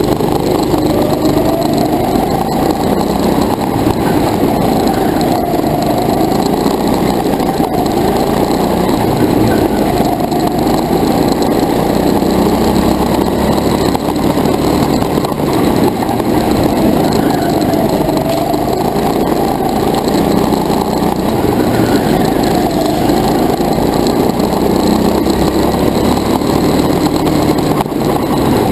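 Go-kart engine running hard under the driver, its pitch rising and falling again and again as the kart speeds up and slows through the turns.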